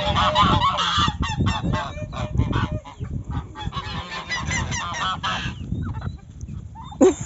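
Domestic goose honking over and over amid a flock of farmyard poultry, with a low rumble underneath.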